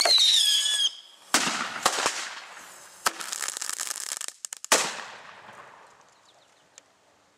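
Fireworks going off inside a microwave oven, among them cherry bombs and crackling bombs. A falling whistle comes first, then several sharp bangs with a run of rapid crackling between them. The loudest bang, about five seconds in, dies away afterwards.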